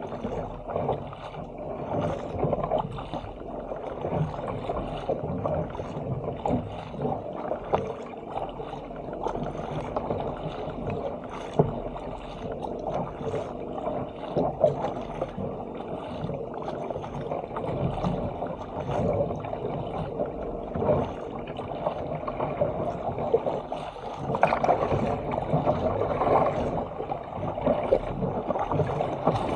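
Sea water rushing and splashing along the hull of a Stealth 457 fishing ski as it is paddled downwind through open-sea chop, with the splash of the double-bladed paddle entering the water at each stroke.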